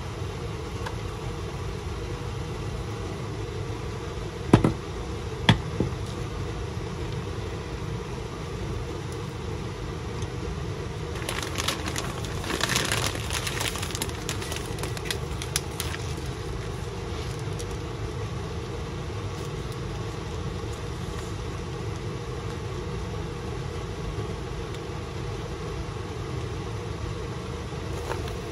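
Two sharp knocks about four and five seconds in, then a printed food packet crinkling for several seconds as it is folded up, all over a steady low hum.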